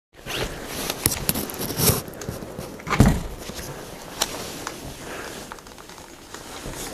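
Scuffing and handling noise of a person moving about with a handheld camera over a bare wooden floor, broken by sharp knocks and a heavy thump about three seconds in.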